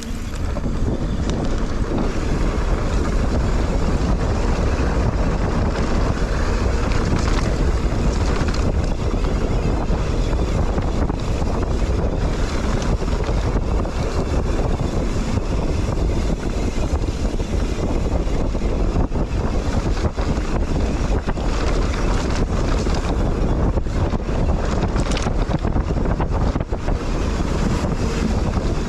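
Wind buffeting the microphone of a rider's camera while a mountain bike rolls along the trail: a steady rushing roar, strongest in the low end, with scattered short rattles from the ride.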